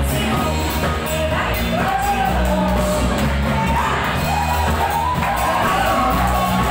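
Live band playing an upbeat pop song: a singer's held, sliding melody over a steady bass line and a regular drum beat.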